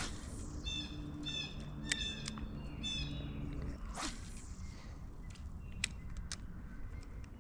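A bird calling in series of short, clipped high notes, over a steady low wind rumble on the microphone. About four seconds in comes one falling whoosh.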